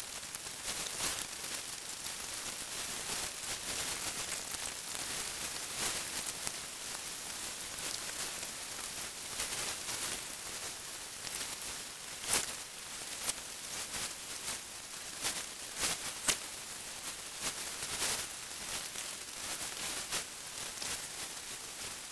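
Steady high hiss full of irregular crackles and clicks, with a few sharper pops about halfway through.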